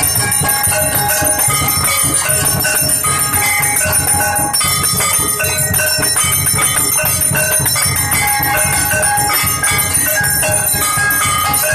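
Hindu temple bells ringing rapidly and without pause during an aarti, many ringing tones overlapping, over a dense, fast low beating.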